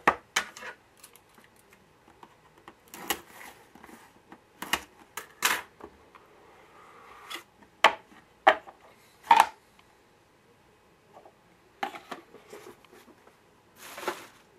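A cardboard trading-card box being handled and opened on a wooden desk: the lid sliding off with short scrapes of cardboard, and a string of sharp taps and knocks, the loudest three in quick succession a little past the middle.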